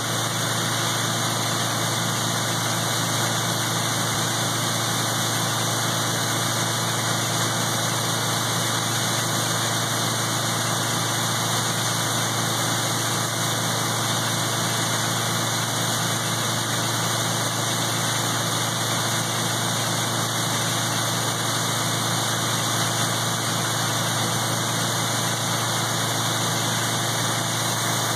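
International tractor running steadily, driving a PTO grinder-mixer grinding feed: one even, unbroken mechanical drone.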